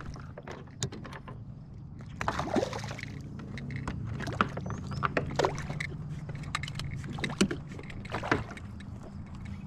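Sounds of a fishing kayak on the water: a run of short knocks and clicks and a few splashy swishes, over a steady low hum.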